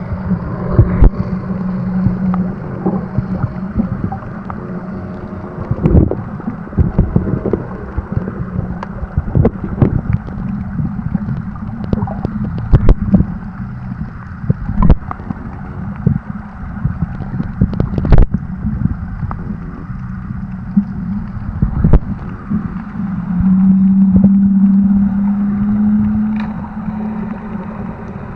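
Audio picked up underwater by an action camera: a muffled low rumble with frequent knocks and clicks. A boat motor's steady drone is heard at the start and returns louder about 23 seconds in.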